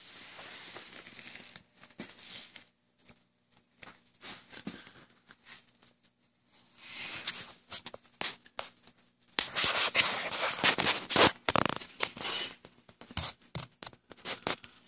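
Irregular scraping and rustling noise close to the microphone, coming in uneven bursts that are loudest a little past the middle, over a faint steady low hum.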